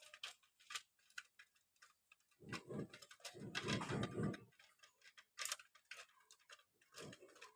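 Pigeons pecking at food on a hard surface, a scatter of quick taps and clicks. A low, rough burst of animal sound runs from about two and a half to four and a half seconds in, and another begins near the end.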